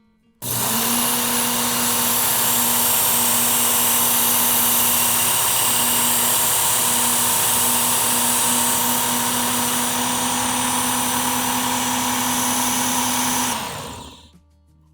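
Work Sharp Ken Onion Edition electric belt sharpener running while kitchen knives are sharpened on its abrasive belt: the motor switches on suddenly just after the start, runs at a steady speed with a hum and a wide hiss, then winds down about a second before the end.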